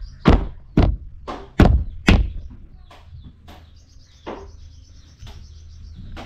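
A large knife chopping through a fish on a plastic cutting board: about five hard chops in the first two seconds, then a few lighter knocks. A high trill, like a bird chirping, runs in the background near the end.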